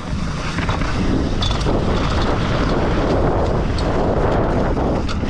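Heavy wind buffeting the microphone at speed, a loud steady rush that cuts off suddenly at the end, with a few faint knocks in it.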